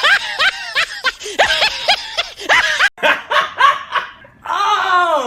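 A person laughing in quick high-pitched bursts, with a brief break about three seconds in, ending on a long falling vocal sound.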